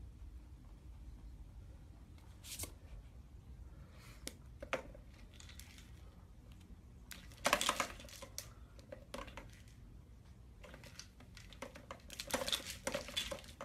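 A rabbit knocking and spinning a plastic windmill toy: irregular rustling and clattering of plastic, in scattered bursts, the loudest about halfway through and more near the end, over a low room hum.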